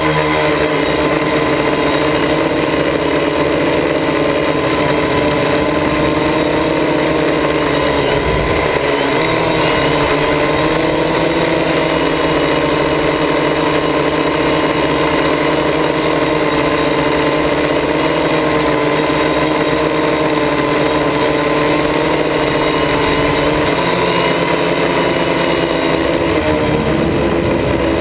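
Quadcopter's electric motors and propellers whirring steadily, heard from on board: a loud hum of several pitches that waver slightly as the motors adjust speed, with brief shifts about nine seconds in and near the end.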